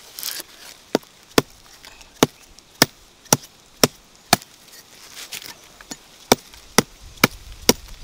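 A blade chopping into hard, dry soil to dig out a cassava root. Sharp strikes come about two a second: seven in a row, a pause of about two seconds, then five more.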